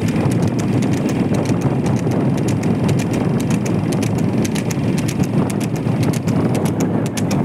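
Water buffalo bull's hooves clip-clopping on asphalt at a trot as it pulls a cart. Under the hoofbeats runs a steady low rumble of the cart's rubber-tyred wheels on the road and wind on the microphone.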